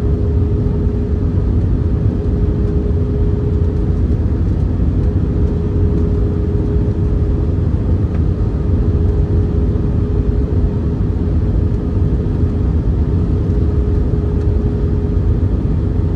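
Cabin noise inside an Airbus A319-132 on approach: the steady rush of airflow and the drone of its IAE V2500 engines, with a steady hum a little above middle pitch.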